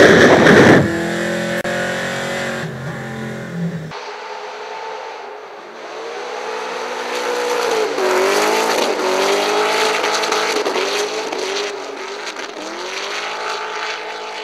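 Ford Mustang drift car's engine at high revs while drifting, its pitch rising and dipping again and again as the throttle is worked, with tyres screeching. A loud burst of noise opens the first second.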